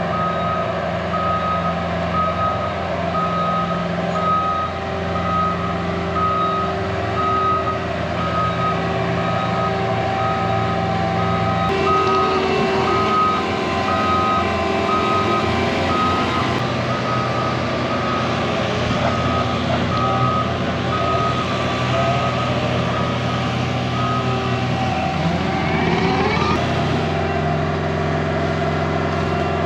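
Reversing alarm on a working machine beeping steadily at one pitch over its running engine. The beeping stops near the end as the engine revs up.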